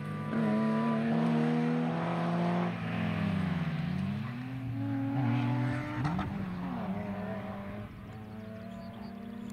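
Two rally car engines, a Peugeot 205 and a BMW E30, accelerating away along the stage. Their pitch rises and drops back repeatedly through gear changes, and they fade with distance near the end.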